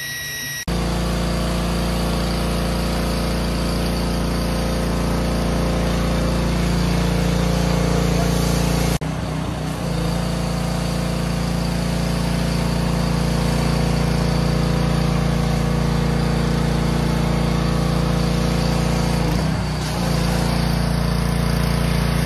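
A motor or engine running steadily at one speed, its level dipping briefly twice.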